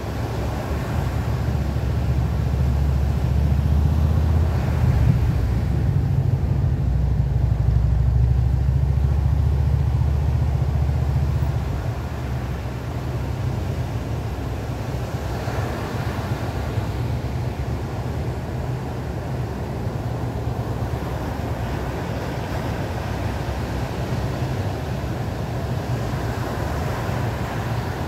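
Ocean surf breaking and washing up a sandy beach, a steady rushing that swells as waves come in. A heavy low rumble sits under it for the first eleven seconds or so, then stops abruptly.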